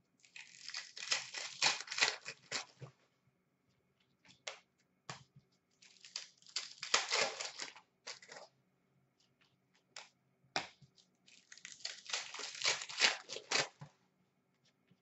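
Upper Deck SPx hockey card packs being torn open, the wrappers tearing and crinkling in three bouts of rustling a few seconds apart, with a few single crackles and clicks between them.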